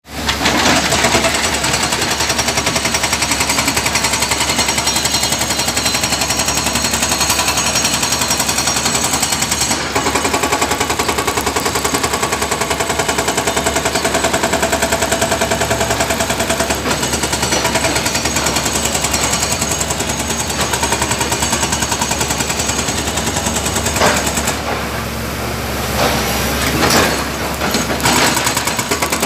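Excavator-mounted hydraulic breaker hammering rapidly and steadily, breaking up the stone and concrete of an old bridge. The hammering eases for a moment about 25 seconds in, with a few separate knocks, then picks up again.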